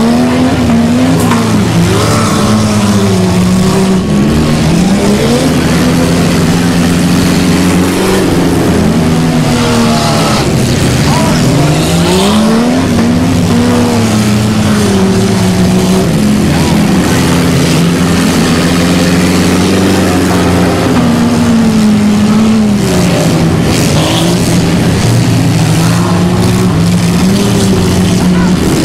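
Several car engines racing in an autocross heat, their pitch climbing and dropping again every couple of seconds as the drivers accelerate and lift, with more than one engine running at once.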